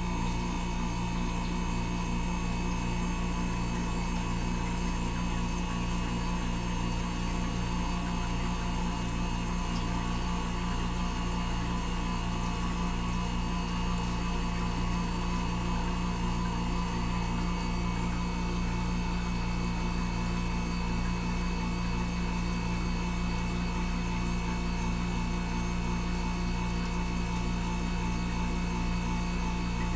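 SY604A ice machine running steadily in its freeze cycle, its compressor humming and its water pump circulating water. The condenser fan motor is seized and never turns on, so head pressure builds toward a high-pressure cutout.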